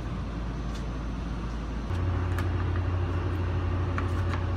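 Steady low hum of a standing GE ET44C4 diesel locomotive heard from inside its cab. About two seconds in, a louder, deeper hum comes in abruptly and holds steady, as some machine on the locomotive starts up.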